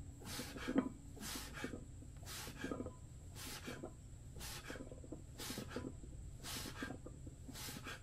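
Hard, hissing breaths of a man straining through a set of barbell bench press reps, one short breath about every second.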